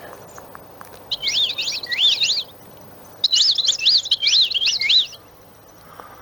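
Birdsong-style ringtone played through a Siemens M65 mobile phone's speaker: two bursts of fast warbling chirps that sweep up and down in pitch, the second one longer.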